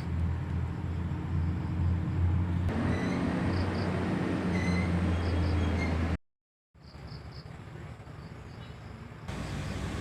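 A steady low hum with faint, short high chirps. It cuts out completely about six seconds in, then comes back quieter.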